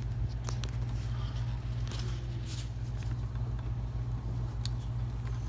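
Classroom room tone: a steady low hum, with a few faint clicks and taps scattered through it.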